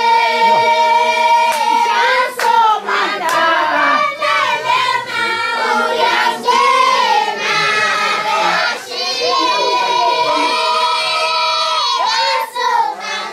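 Group singing by children and women in traditional Swazi song, voices holding long notes together, with a few handclaps.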